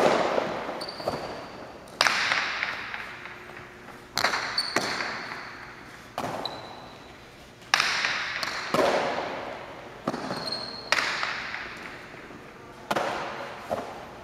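Jai alai pelota cracking against the walls and floor of a cancha during a rally: about a dozen hard hits, one every one to two seconds, each leaving a long echo in the hall.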